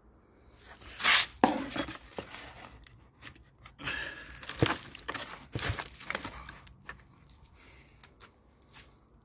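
Plastic wrap crinkling and cardboard packaging rustling and scraping as a porcelain toilet tank lid is handled and laid back into its box, with a few sharp knocks among the rustles, the loudest about a second in.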